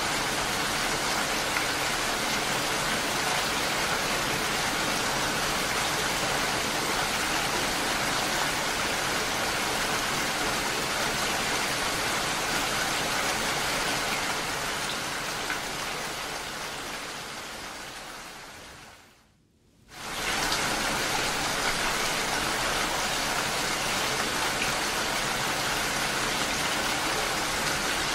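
Steady rain falling, a dense even hiss of drops. About two-thirds of the way through it fades down to a moment of silence, then comes straight back at full strength.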